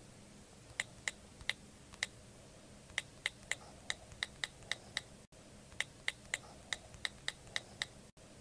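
Keyboard typing sound effect: quick, crisp key clicks, two to four a second, in short runs broken by brief pauses.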